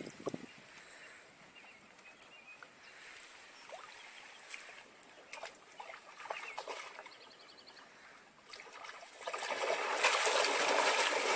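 Water splashing and rushing, which swells from faint to loud over the last few seconds. Before that there are only scattered faint clicks and knocks.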